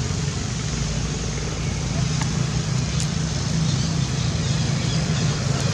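Steady low background rumble with faint voices in it, and a couple of faint clicks about two and three seconds in.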